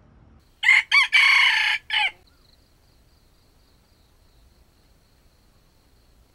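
A junglefowl rooster crows once: a short, clipped crow of about a second and a half, made of two quick notes, a long held note and a final note that falls away. A faint, steady high tone carries on afterwards.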